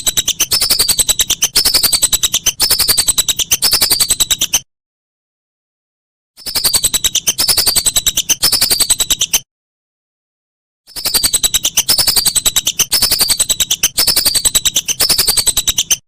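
Lesser whistling duck (belibis) calling: a fast chatter of clicks under a series of falling whistled notes. It comes in three bouts of a few seconds each, with silent gaps between.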